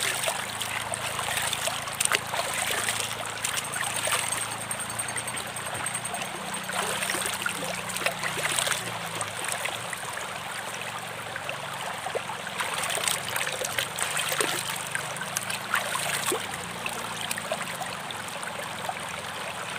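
Shallow rocky river flowing and trickling steadily, with a few louder splashes of water scooped up by hand and poured over the head.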